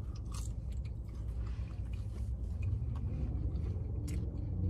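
Low steady rumble of a car idling, heard inside the cabin, with faint chewing and a few small clicks from a fork and a paper food box.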